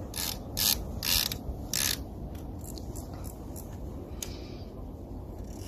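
Fishing reel being wound in, a run of ratcheting clicks that are loud for the first two seconds and then fainter and sparser.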